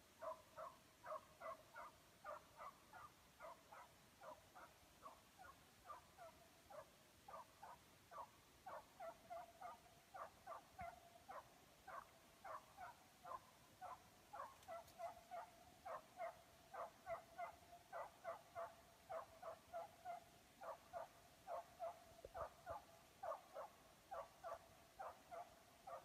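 Estonian hound giving tongue on a hare's trail: a faint, steady run of short yelping barks, about two or three a second, without a break. This is the hound's chase voice, the sign that it is on the hare's scent and driving it.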